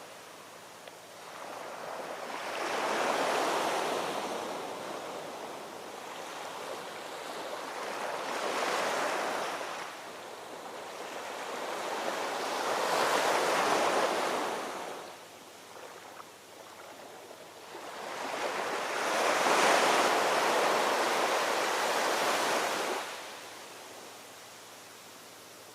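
Ocean waves washing onto a shore. There are four surges of rushing water a few seconds apart, and each swells and then falls away into a quieter lull.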